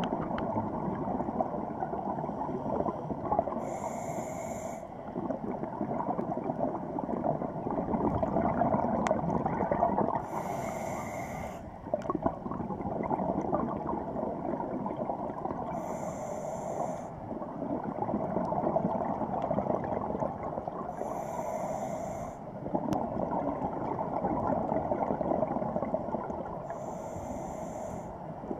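Scuba diver breathing through a regulator, heard underwater: a short hiss on each inhale about every six seconds, with long stretches of bubbling exhaust between.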